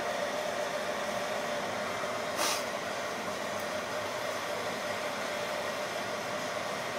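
Steady rushing of forced air blowing into a small homemade furnace, with a steady motor whine, and a short hiss of noise about two and a half seconds in.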